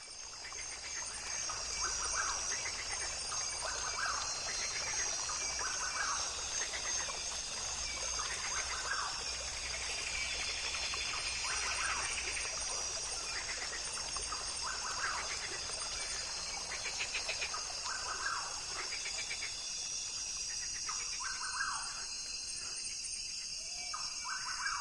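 Birds calling outdoors, short calls repeating every second and a half to two seconds over a steady high-pitched background hiss.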